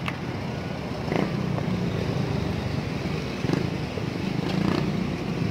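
Steady low rumble of outdoor street noise, with a few faint knocks.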